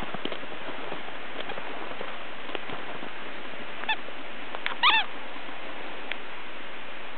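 Border Collie puppy bounding through deep snow: soft crunching steps under a steady hiss, with two short high squeaks about four and five seconds in, the second louder and dropping in pitch.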